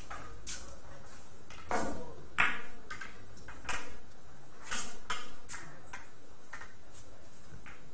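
Billiard balls clicking against each other and the cue during a shot: a run of sharp clicks with short ringing tails at uneven intervals, the loudest about two seconds in.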